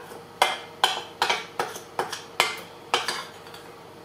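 Metal spoon scraping and clinking against a glass mixing bowl, about nine quick strokes, as the last of the muffin batter is scraped out of the bowl.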